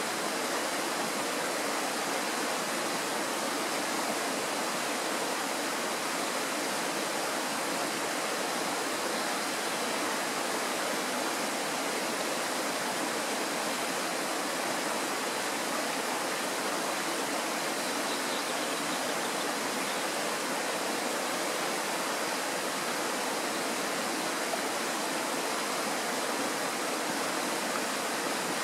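Kirowa Woda, a Tatra mountain stream, rushing in a steady, unbroken wash of water.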